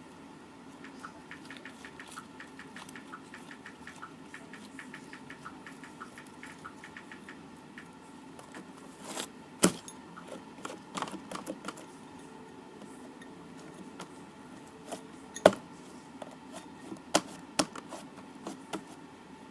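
Rapid light clicks and taps of small hard objects being handled, with a few louder sharp clacks about halfway through and near the end.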